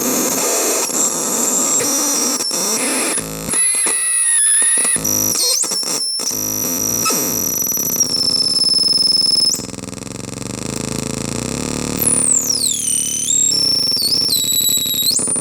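Homemade CMOS harsh noise synth producing loud distorted noise with shrill high-pitched tones that jump from pitch to pitch and cut out briefly a few times. Near the end the tones glide down and then sweep back up.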